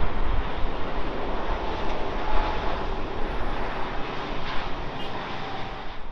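Virgin Atlantic Airbus A330 airliner's twin jet engines as it flies low and close on landing approach, a loud, steady rushing noise with a deep rumble that eases slightly near the end.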